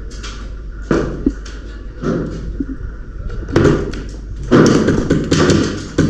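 Clusters of rapid clicks and thumps, in short bunches about a second in and around two seconds, then denser and louder through the second half.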